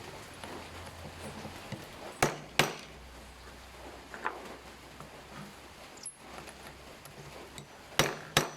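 Hard knocks in two quick pairs, a little over a second in and again near the end, with a lighter tap between: a metal airgun pellet mold being struck.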